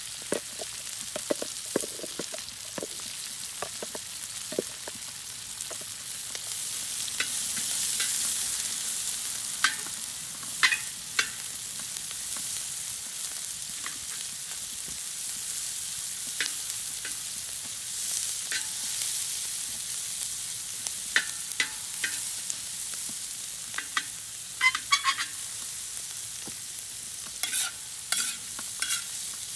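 Chopped onions and bell peppers frying in bacon fat in a pan over a very hot rocket stove: a steady sizzle that swells about eight seconds in. Now and then a utensil clicks and scrapes against the pan as the vegetables are stirred.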